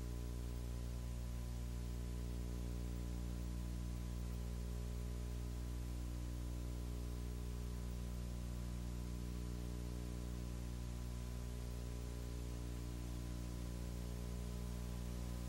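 Steady electrical hum with a stack of even overtones, over a constant hiss.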